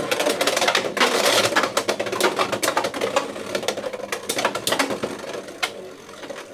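Beyblade X spinning tops, Driger Slash among them, clattering and colliding in a plastic stadium: dense rapid clicking and rattling, a loud burst about a second in, then thinning out and growing quieter.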